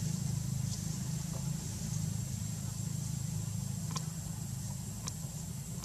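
A steady low engine-like hum, with a thin high steady whine above it and two faint sharp clicks about four and five seconds in.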